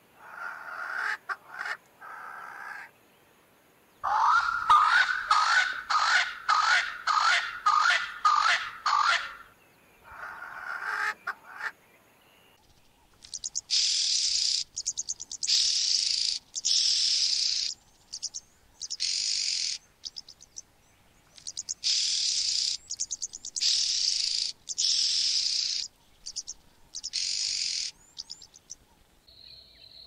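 Swainson's spurfowl calling: bouts of harsh, swooping notes, the longest a fast run of about ten in a row. About twelve seconds in, this gives way to red-billed oxpeckers giving a series of hissing calls, each about a second long, with short gaps between them.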